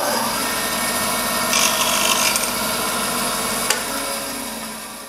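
Laguna 1412 bandsaw running, its blade cutting briefly through a small dowel on a crosscut sled about one and a half to two and a half seconds in. The saw is switched off with a click near the four-second mark and winds down, fading out.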